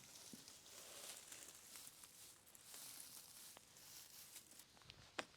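Near silence: faint rustling and a few light ticks, with one sharper click near the end.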